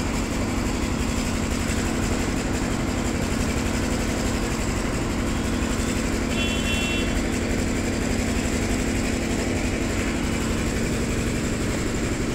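A steady mechanical drone, with a short high beep about six seconds in.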